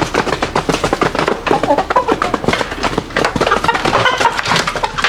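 Chickens making calls among a dense run of quick taps and clicks, with one clearer pitched call about four seconds in.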